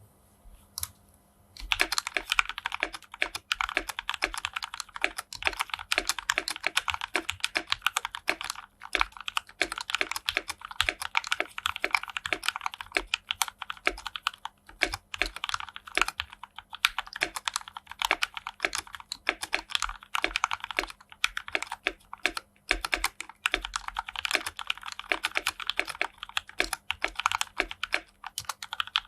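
Fast, continuous typing on a mechanical keyboard with lubed Gateron Black linear switches in an acrylic case, with irregular keystrokes and brief pauses. It starts after a single keystroke about a second in.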